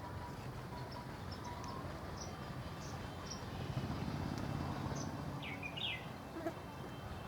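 Steady outdoor background noise with small birds chirping now and then, two louder chirps coming about five and a half seconds in.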